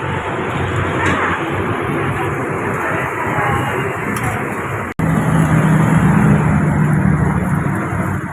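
Street traffic noise with dense, steady road rumble; after a sudden break about five seconds in, a steady low engine hum from a passing motor vehicle comes to the front.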